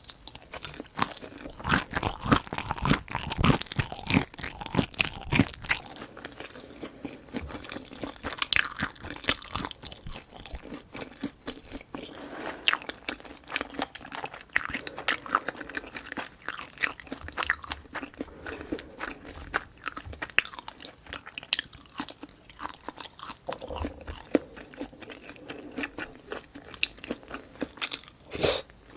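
Close-miked chewing and crunching of food, with many sharp crunchy bites. The bites are loudest and densest in the first few seconds, then give way to steadier chewing with smaller crunches.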